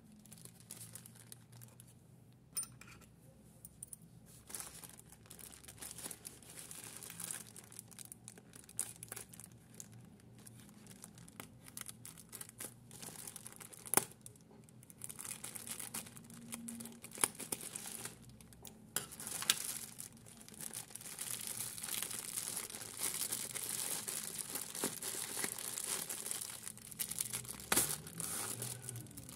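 Plastic mailer bag crinkling and tearing as it is handled and cut open with scissors, with a few sharp clicks along the way. The crinkling gets louder in the second half as the air-cushion-wrapped contents are drawn out of the bag.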